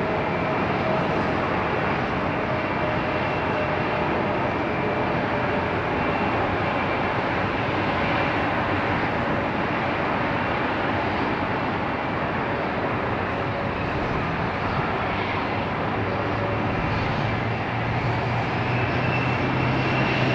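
Jet engines of a Boeing 777-300ER at low taxi power as it lines up on the runway: a steady rushing noise with a faint whine. A low hum grows in the last few seconds.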